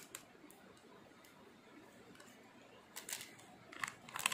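Mostly quiet, with a faint click at the start, then, about three seconds in, a few clicks and soft crinkles of a plastic LEGO minifigure bag being handled, growing busier near the end.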